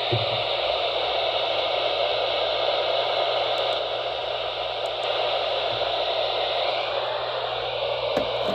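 Steady radio static hiss from a weather radio receiver picking up no clear signal, with a low hum underneath.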